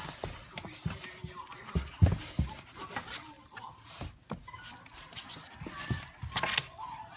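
A Maltese puppy scuffling on the cardboard floor of a box while a hand plays with it: irregular thumps and knocks against the cardboard with rustling in between, the loudest few thumps coming about two seconds in.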